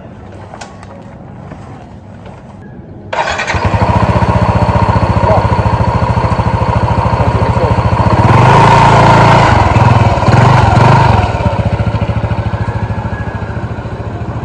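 Motor scooter engine starting about three seconds in and running, then revving up louder as it pulls away and fading as it rides off.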